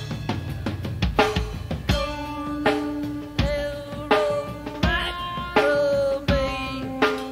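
Live rock band playing an instrumental passage: drum kit hits over held, changing guitar and bass notes, from a cassette tape.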